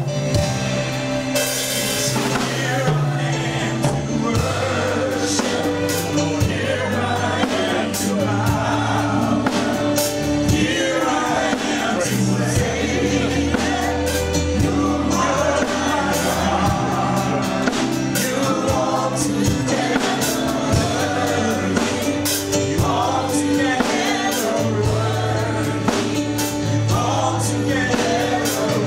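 Gospel worship song: a group of voices singing together over a band, with held bass notes and drums keeping a steady beat.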